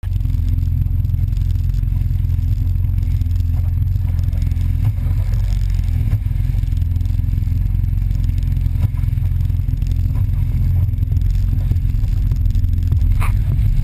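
Yamaha VXS jet ski's engine running steadily at cruising speed, heard as a muffled low rumble through a waterproof camera housing.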